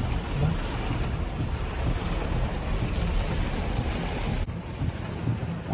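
Steady rushing noise of wind buffeting the microphone, with a low rumble; the upper hiss drops away about four and a half seconds in.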